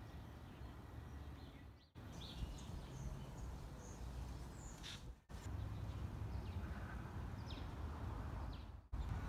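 Street ambience with small birds chirping now and then over a low steady rumble. The sound drops out briefly three times, where the clips are cut together.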